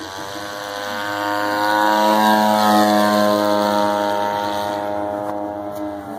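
Radio-controlled Taylorcraft model airplane's motor and propeller at full power during its take-off from snow on skis and climb-out. It grows louder as the plane comes past, peaks about two to three seconds in, drops slightly in pitch, then fades as it climbs away.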